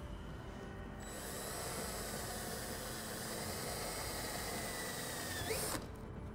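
Cordless drill with a 3/16-inch pilot bit drilling a pilot hole into a Corvette's rear body panel: the motor starts about a second in and whines steadily, its pitch sagging slightly as the bit cuts, then rises sharply just before the trigger is released.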